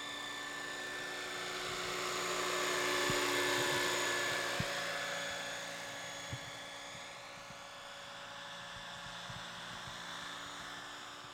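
RC scale model helicopter (Eurocopter AS355 body on a Century Falcon frame) flying past: a steady high whine from its motor and rotor blades that grows louder to a peak about three and a half seconds in, then fades as it moves away.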